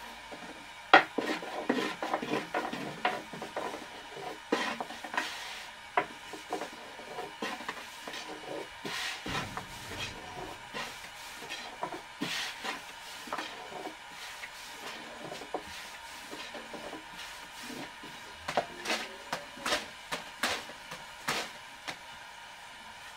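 Irregular knocks, clatters and scraping of household objects being handled and rubbed, the loudest knock about a second in, over a faint steady hum.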